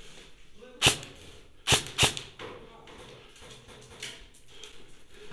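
Airsoft electric gun (Ares Amoeba 009 DMR) firing three single shots: one about a second in, then two quick ones close together a second later.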